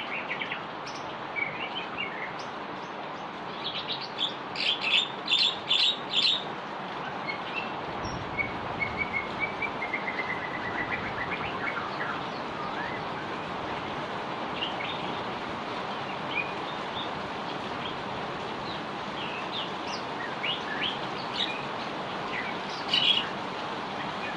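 Heavy rain falling steadily, with small birds chirping over it; a burst of loud, rapid chirps about four to six seconds in and another near the end.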